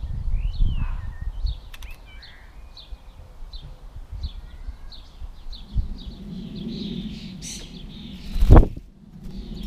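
Small garden birds chirping, one short high chirp repeating about twice a second, with a few sliding calls about half a second in. Low wind rumble sits underneath, and there is one loud thud near the end.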